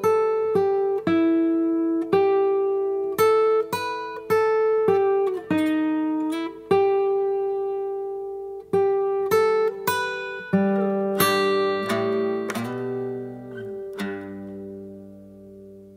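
Solo guitar music: a line of single plucked notes with a few sliding pitch bends, then a final chord near the end that rings out and fades.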